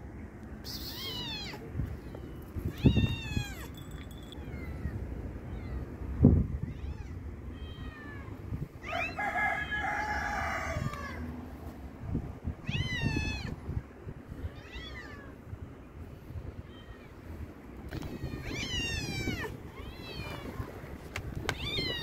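Street cats meowing over and over, short high meows every couple of seconds with a longer, lower meow around ten seconds in. Two low thumps, about three and six seconds in, are the loudest sounds.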